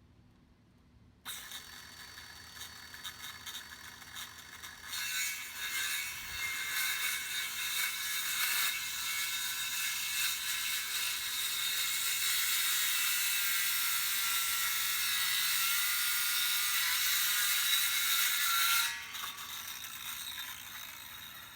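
Power saw cutting through a wooden playground post: a steady mechanical sound that starts about a second in, gets louder a few seconds later as the cut goes on, and stops sharply near the end.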